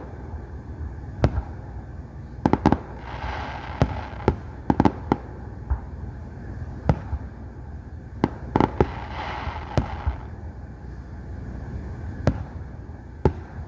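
Fireworks exploding: over a dozen sharp bangs at irregular intervals, some coming in quick clusters of two or three, with two short stretches of hiss between them and a steady low rumble underneath.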